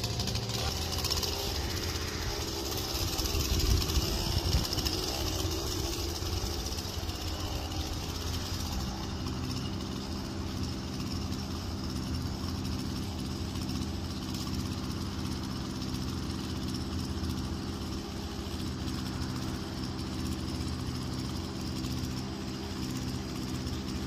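An engine idling steadily, with a low rumble that briefly grows louder about four seconds in.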